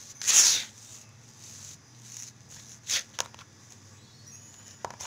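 Silicone spatula scraping and pressing soft butter cookie dough around a mixing bowl: one loud scrape about half a second in, a shorter one about three seconds in, and a few light clicks near the end.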